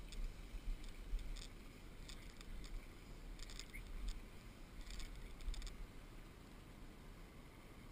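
Wind buffeting the microphone as an uneven low rumble, with small clusters of faint, short high ticks every second or so during the first six seconds.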